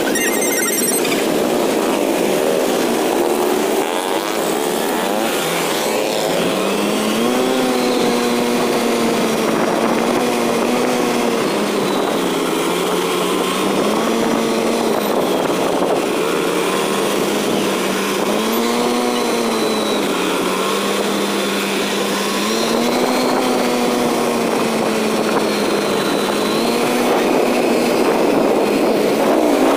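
Motorcycle engine running during a slow convoy ride, its note rising and falling every few seconds over a steady noise.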